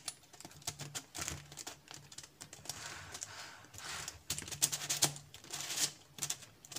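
Unstickered VeryPuzzle Rayminx twisty puzzle being turned by hand: its black plastic pieces slide and click against each other in irregular scraping turns and clicks.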